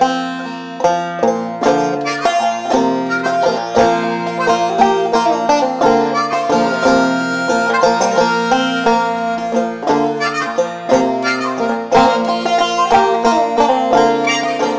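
Clawhammer banjo picking a lively folk tune, with harmonica holding notes over it.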